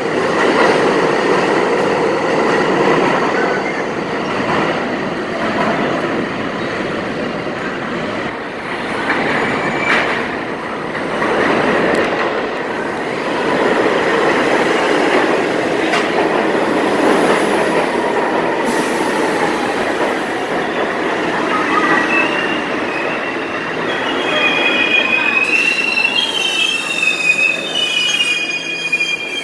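New York City subway trains running through an underground station with a steady rumble and rattle of wheels on rail. One train pulls in along the platform and slows, and high-pitched wheel squeal sets in over the last few seconds as it brakes to a stop.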